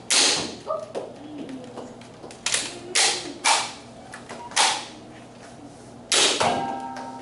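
Nerf Rival blaster firing foam balls: about six sharp spring-powered pops, uneven in spacing, three of them close together in the middle.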